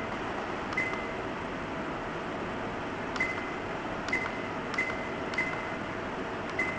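Digital alarm clock radio's buttons being pressed, each press giving a click and a short high-pitched beep, six times at uneven intervals over a steady background hiss.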